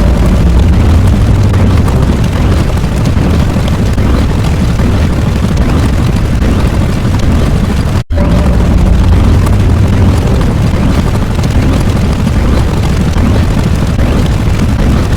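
Loud, continuous rumbling noise, heaviest in the low end: a sound-effect track. It cuts out for an instant about eight seconds in and starts again at once.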